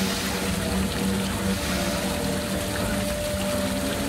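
Technical Park Mini Apollo flat ride running, its drive machinery giving a steady low hum over an even hiss.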